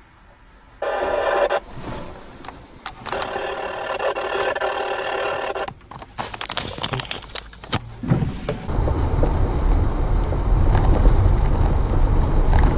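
A pitched ringing tone sounds twice, once briefly and then for a few seconds, followed by a rapid run of clicks and knocks. Then comes a steady low rumble of a car driving, picked up inside the cabin by a dashcam.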